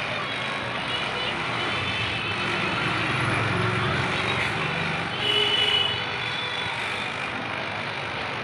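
A corded electric hair clipper running as it shaves a head, over a steady background of street traffic. A brief high-pitched beeping rises above it about five seconds in.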